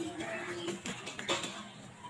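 Flock of house crows feeding at scattered grain: a few short calls and scattered sharp taps.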